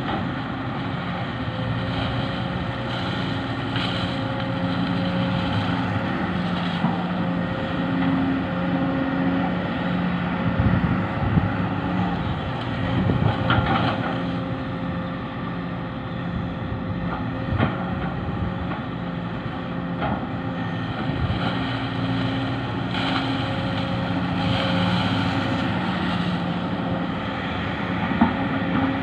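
Excavator's diesel engine running steadily, with an occasional clank or knock.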